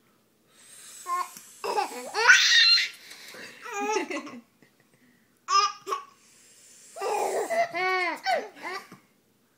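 A baby boy laughing in bursts of high, squealing giggles, with a quick run of repeated laughs near the end.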